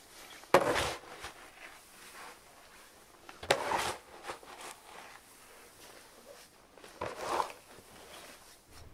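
Dry hay being forked with a wooden-handled pitchfork: three rustling strokes about three seconds apart, each starting sharply as the fork bites into the hay.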